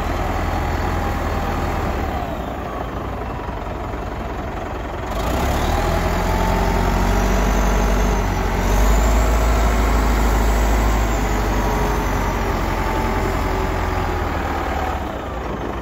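Caterpillar 950B wheel loader's diesel engine running steadily. It gets louder about five seconds in and again near nine seconds, where a faint whine rises and falls, then eases back near the end.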